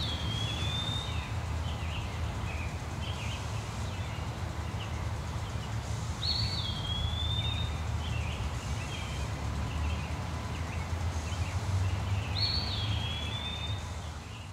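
A bird calling three times, about six seconds apart: each call a sharp rising note that drops into a drawn-out high whistle, followed by a few softer chirps. Under it runs a steady low rumble of outdoor background noise, which fades out near the end.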